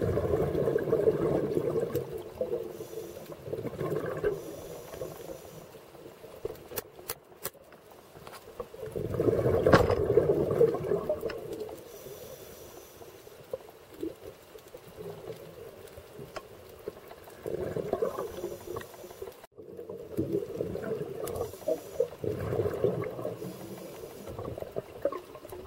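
Scuba regulator exhaust bubbles heard underwater: bursts of bubbling, each a couple of seconds long, coming every several seconds as the diver breathes out, with quieter stretches between. A few sharp clicks about seven seconds in.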